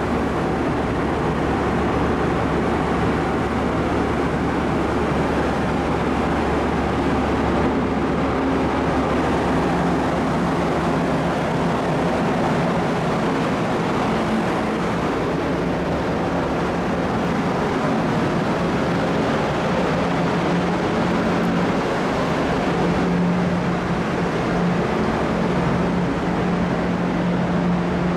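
Steady rush of a car ferry's deck ventilation fans and machinery, with a low hum that comes in about ten seconds in and grows stronger near the end.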